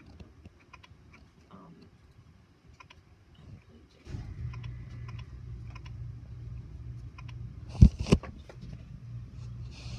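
HP OfficeJet 5740 inkjet printer starting a print job: a few faint clicks, then about four seconds in a steady low mechanical hum starts and keeps running. Two loud knocks come just before eight seconds.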